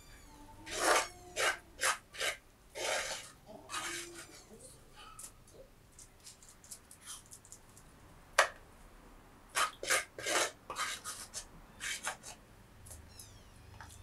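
Irregular short scraping and rubbing strokes, in two clusters, with one sharper louder stroke in between.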